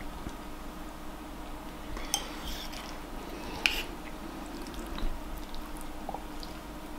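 A metal fork clinking and scraping against a bowl as someone eats, with three sharper clinks spread through, over a faint steady hum.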